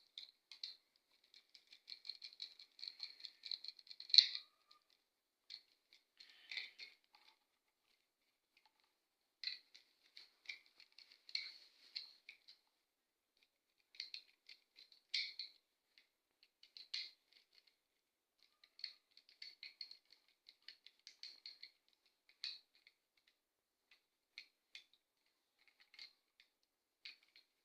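Faint runs of small ticks and scrapes with short pauses between them: a screwdriver tightening the terminal screws on a two-gang wall switch.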